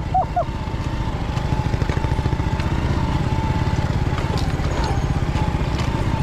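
Honda Cross Cub's small single-cylinder four-stroke engine running steadily at low speed while the bike is ridden along a dirt forest track, an even low putter of firing pulses.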